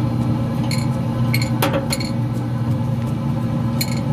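Pellet grill's fan and auger motor running with a steady hum, while wood pellets fed by the auger drop into the metal burn pot with a few short clinks: the grill is priming.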